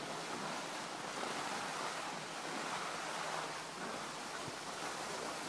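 Steady rushing hiss of an open ski slope, with nothing distinct standing out. It swells slightly between about two and three and a half seconds in.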